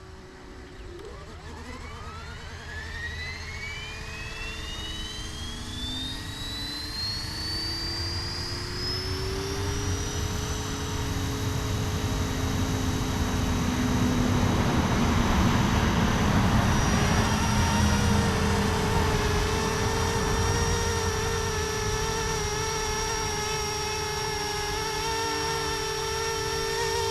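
Flishrc Little Bird 450 electric radio-controlled helicopter spooling up: the motor whine and rotor sound climb steadily in pitch over about ten seconds, then hold at a steady speed. The sound grows louder toward the middle and stays strong.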